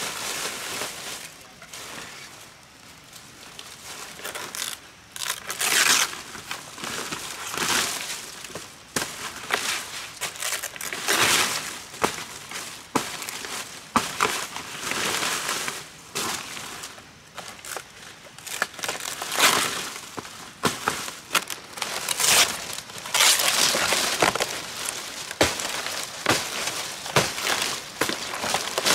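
Large fan-palm fronds rustling and crackling as they are pulled through and laid out by hand, in irregular bursts with occasional sharp snaps.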